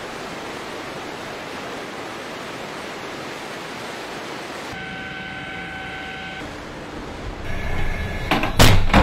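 Steady rush of wind and churning sea water, giving way about five seconds in to a steady machinery hum with a high whine. Near the end a louder rumble comes in, with several loud sharp knocks.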